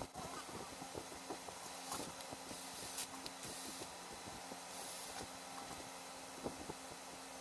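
Small irregular clicks and taps of hammer drill parts and hand tools being handled during a repair, over a steady low hum. There are three short hisses, the first two close together around the middle and the third a second or so later.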